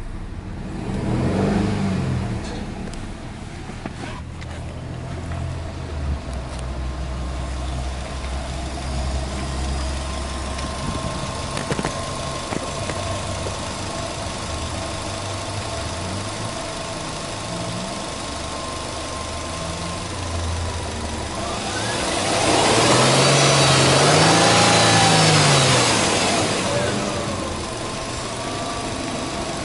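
Subaru Legacy B4 2.0GT's turbocharged EJ20 flat-four engine idling just after start-up, with a short rise in revs about a second or two in. About 22 seconds in it is revved once in neutral, the note climbing, held for a few seconds, then falling back to idle.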